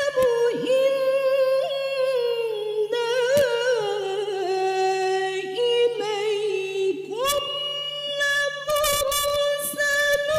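A woman reciting the Quran in the melodic tilawah style through a microphone, holding long ornamented notes. The line sinks slowly in pitch through the middle, then starts again on a higher held note about seven seconds in.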